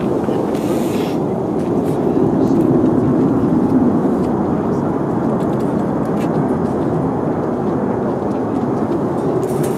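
Jet engine roar of an F/A-18 Hornet in flight, a steady deep rumble that swells three to four seconds in and then slowly fades.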